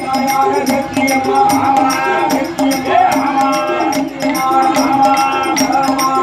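Villu paattu bow-song ensemble: voices singing a wavering melody over a steady beat of strikes on the large musical bow and its jingling bells, with folk percussion.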